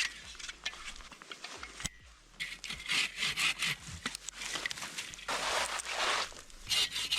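Rasping strokes of a saw cutting through dry, dead wood, uneven at first and then in longer runs from about two seconds in.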